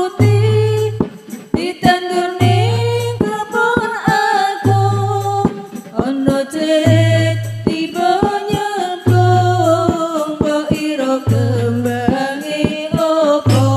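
A women's hadroh ensemble singing a sholawat melody over frame drums (rebana). A deep drum stroke falls about every two seconds, with sharp slapped drum strokes in between.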